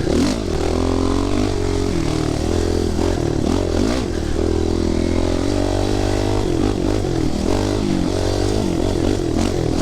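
A 250 dirt bike's engine running on the trail, its pitch rising and falling over and over as the throttle opens and closes.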